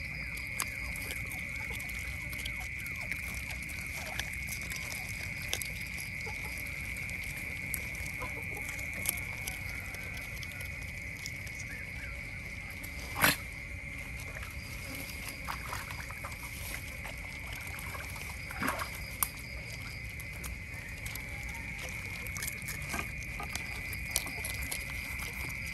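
Otters chewing and crunching fish: scattered wet clicks and smacks, with one sharp crack about halfway through, over a steady high-pitched hum.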